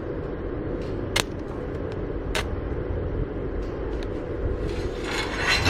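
MIG welding rig humming steadily, with two sharp clicks about one and two seconds in and a rising hiss near the end. The wire is not feeding, so no proper arc catches.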